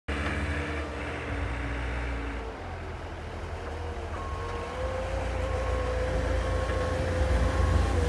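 Kubota SSV75 skid steer's four-cylinder diesel engine running under load as it pushes snow with a front snow pusher, growing louder as it approaches, with a steady whine that rises slightly in pitch about halfway. From about halfway, a short beep repeats roughly once a second.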